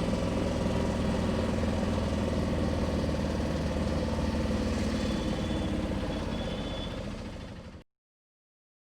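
A vehicle engine running steadily close by, a low even hum that fades over the last second and then cuts off abruptly.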